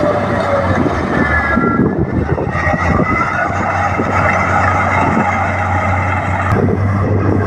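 Komatsu D58P crawler bulldozer working, its diesel engine running steadily under dense track clatter, with high wavering squeals over the top.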